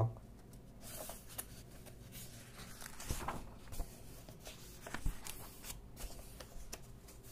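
Pages of a paperback book being turned and leafed through by hand: soft paper rustles and flicks, several of them scattered through.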